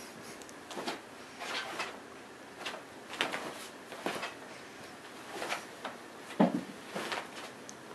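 Bed sheets rustling and scratching in short, repeated swishes as cats paw, claw and pounce on them, with a louder thump late on, like a cat landing on the mattress.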